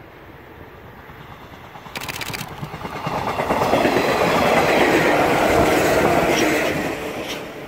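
Shinano Railway 115 series electric multiple unit passing close by, its wheels clattering over the rail joints. The sound swells about three seconds in and falls away near the end as the train goes past.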